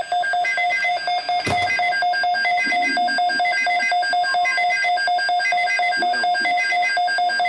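Emergency alert attention signal: a loud electronic tone pulsing rapidly and steadily, with higher beeps repeating in regular groups. A single sharp click sounds about a second and a half in.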